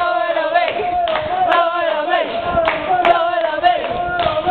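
A crowd of football supporters singing a chant together, with hand claps in time, about two a second.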